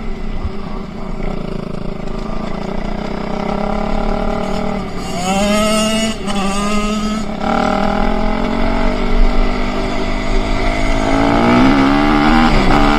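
Enduro motorcycle engine running and revving hard. Its pitch climbs twice in quick succession about five seconds in, drops, then climbs again near the end, as it accelerates through the gears.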